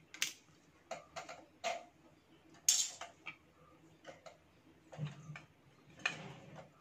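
Irregular light clicks and knocks from a submersible borewell pump's shaft and stage stack being lifted and handled. The loudest knock, with a short hiss, comes a little under three seconds in.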